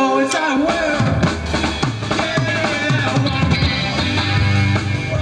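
Live rock band playing, heard through a VHS camcorder recording: a drum kit with bass drum and snare strokes over electric guitars, with the low end coming in about half a second in.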